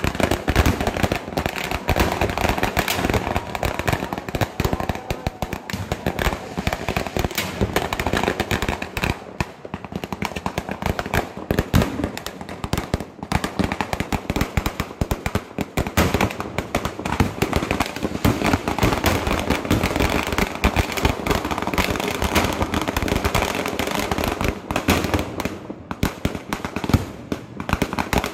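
Vedikkettu firecrackers going off at ground level in a dense, unbroken barrage of rapid bangs and cracks.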